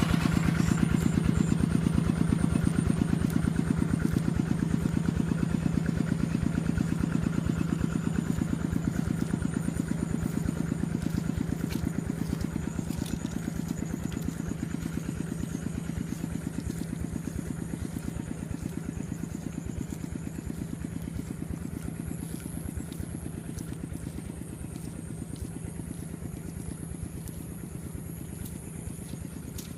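Small engine running steadily with an even chugging pulse, slowly fading as it moves away.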